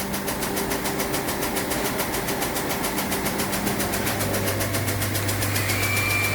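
Audi Q3 engine running at idle with an even, rapid knocking tick, several times a second, over its steady hum; the hum drops in pitch about two-thirds of the way through.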